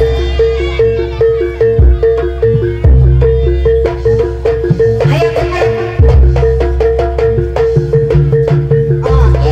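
Live Javanese gamelan accompaniment for a buto dance: metallophones strike a fast, steady alternating two-note pattern over heavy drum strokes.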